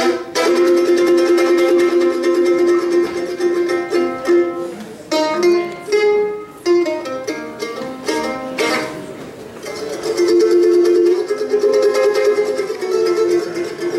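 F-style mandolin played with fast tremolo picking, holding ringing chords that change every second or few, with short breaks between phrases.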